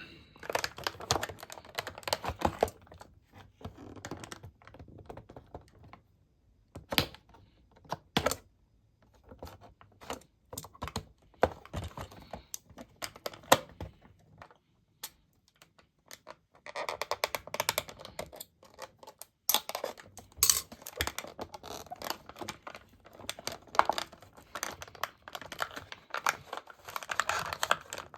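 Small diecast car's plastic and cardboard packaging being worked open by hand and cut: irregular clicks, taps and crinkling, with a quieter stretch of a few seconds early on and busier handling later.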